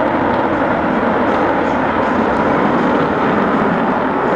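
Jet engines of a formation of F-16 fighters in flight: a steady, even rushing noise with no change in pitch.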